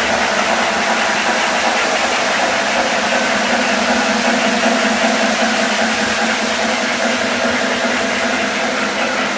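O-gauge three-rail model trains running on the layout: a steady mix of motor hum and wheel-on-rail noise.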